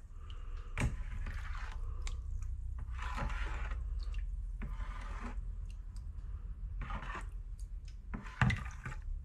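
Warm water sloshing in a bowl as a citric-acid rust-removal solution is stirred to dissolve the acid, in several swishes with a few light knocks.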